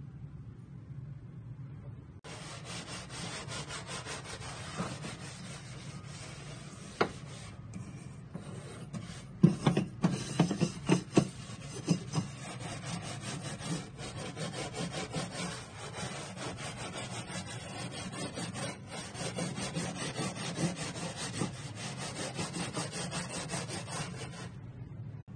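Steel wool scrubbing a wet, greasy gas stovetop with rapid back-and-forth scratching strokes. It starts about two seconds in and stops shortly before the end, with a few louder knocks about ten seconds in.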